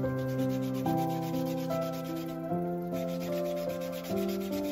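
Sandpaper rubbed back and forth by hand over a flat wooden board, a continuous scratchy hiss, under slow background music of sustained keyboard notes.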